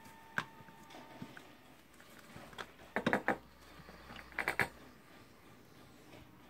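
Light clicks and knocks of small metal tool parts being handled and fitted during reassembly. There is one click about half a second in, a quick run of three at about three seconds, and another short cluster about a second and a half later.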